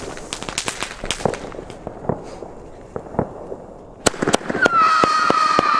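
Weco Night Howler firework battery: its lit fuse sputters and crackles with scattered small pops, then about four seconds in the first shot fires with a sharp crack. Half a second later a loud screaming whistle, the battery's howler effect, sets in and sinks slowly in pitch.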